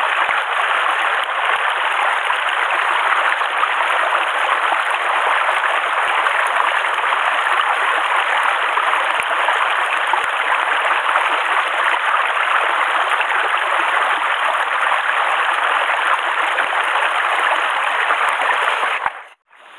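A mountain stream running steadily over rocks, mixed with rain falling on the water's surface. The sound drops out suddenly for a moment near the end.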